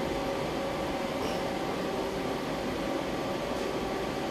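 Samsung SL-25/1000 CNC lathe running: a steady machine hum with a faint whine.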